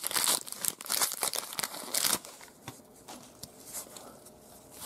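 Plastic trading-card pack wrapper crinkling and tearing as the pack is opened, for about two seconds, then softer rustling with a few light clicks as the cards are handled.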